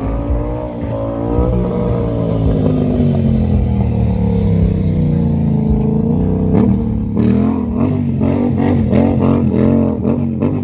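Stunt motorcycle engine revving, its pitch rising and falling. From about seven seconds in come quick, repeated throttle blips.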